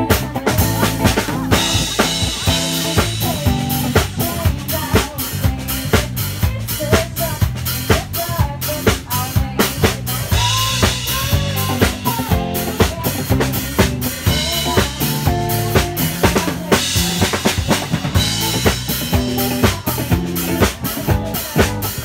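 Live band playing through a stage PA at a sound check. A drum kit with bass drum and snare keeps a steady beat, with bass notes underneath and a singer on a microphone over it.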